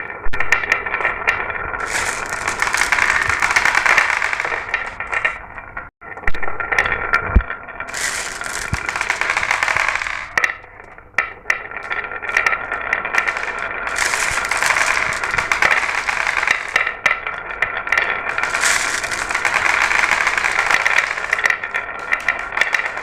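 Glass marbles rolling and clattering down a marble run track: a continuous rattle of many quick clicks, broken off for an instant about six seconds in.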